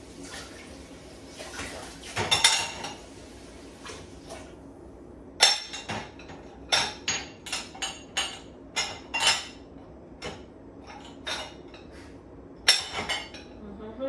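Dishes clinking and knocking against each other and the wire upper rack of a dishwasher as they are loaded: a clatter a little over two seconds in, then a quick run of short, sharp clinks from about five seconds in.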